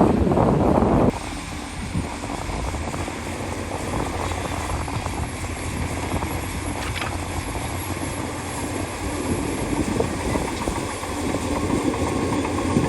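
Diesel engine of heavy earthmoving machinery running steadily. It is louder for about the first second, then drops suddenly to a steadier, softer running sound.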